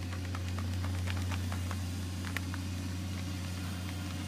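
A steady low mechanical hum from an unseen motor running without change, with a few faint ticks over it.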